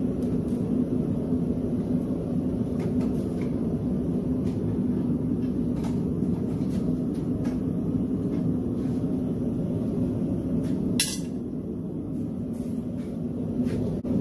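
A blacksmith's forge running with a steady low drone. Faint ticks come through it, and one sharp click sounds about eleven seconds in.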